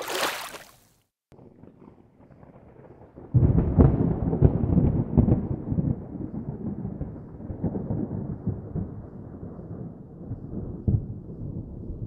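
Water splashing against a kayak bow for the first second. About three seconds in comes a sudden clap of rolling thunder: a deep rumble with crackling peaks that slowly fades, with one more crack near the end.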